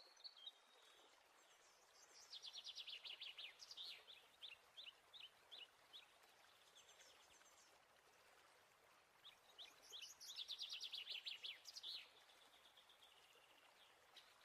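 Faint songbird singing: two rapid, high-pitched trilled phrases, one about two seconds in and one about ten seconds in, over a soft background hiss.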